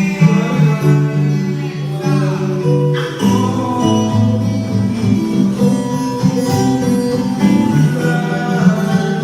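Recorded song playing: guitar strums over a beat, with a sung vocal line.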